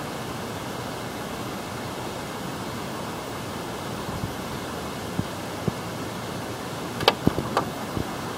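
Motor oil pouring in a steady stream from a plastic jug into a funnel, a soft continuous rush. A few sharp clicks and knocks near the end as the jug is handled and tipped back.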